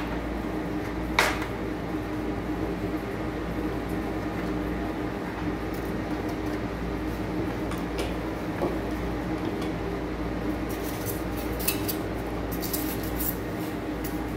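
Knocks and light clinks of a Tefal electric plancha grill's ribbed grill plate and housing being handled and fitted together: one sharp knock about a second in, then scattered light clicks and taps, more of them near the end, over a steady background hum.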